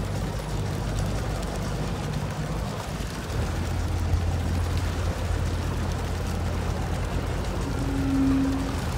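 Boat engine running with a steady low hum that grows stronger a few seconds in, over a steady rush of water and wind. Near the end a short steady tone sounds for about a second.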